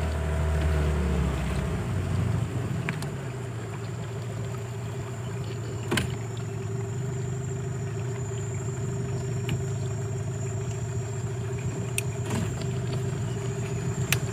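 Boat's outboard motor easing off about a second or two in, then running steadily at low speed as the boat closes on the bank. A few sharp clicks or knocks sound over it.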